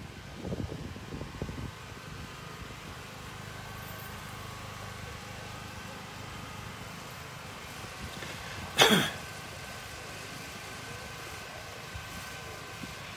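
Steady low rumble of wind on a phone microphone, broken about two-thirds of the way through by one short, sharp cough close to the microphone.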